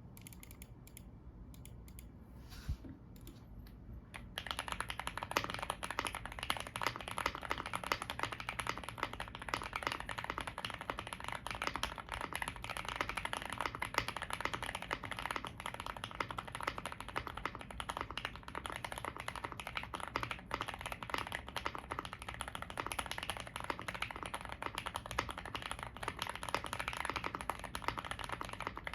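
Fully foamed, weight-modded GMK81 mechanical keyboard with Gateron Yellow Pro 2.0 linear switches and Aifei double-shot ABS Cherry-profile keycaps, typed on rapidly in a steady stream of key clicks that begins about four seconds in.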